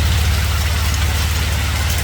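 Hail and rain pelting down: a dense, steady patter of small impacts over a strong low rumble.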